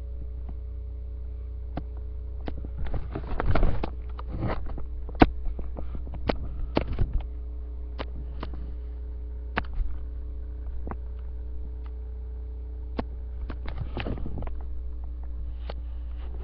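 Steady electrical mains hum picked up by the microphone, broken by scattered sharp clicks and short rustles of handling and fabric movement.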